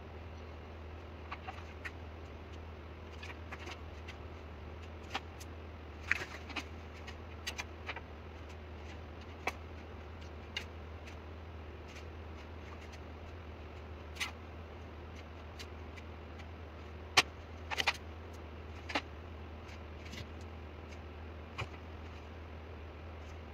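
Scattered light clicks and taps of drawing tools (pencils, a steel ruler and calipers) being picked up and set down on a workbench, over a steady low hum. The sharpest clicks come in a short cluster about two-thirds of the way through.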